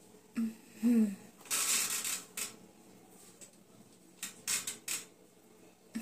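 A couple of brief hums from a person, then a breathy exhalation. A few short clicks follow about four seconds in.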